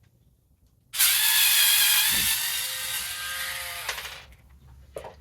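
Power screwdriver running for about three seconds, starting suddenly about a second in. Its motor whine dips in pitch as it spins down and stops. It is backing the Torx mounting studs out of a hard drive.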